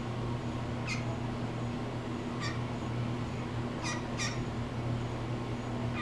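Blue jay giving short squawky calls: one about a second in, another a second and a half later, then two close together a little past the middle, over a steady low hum.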